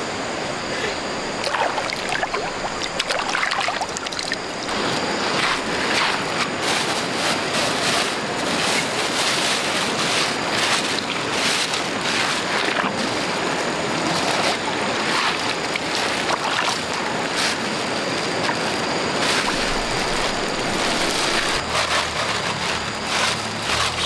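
Flowing stream water rushing steadily, with many brief louder splashes and gurgles.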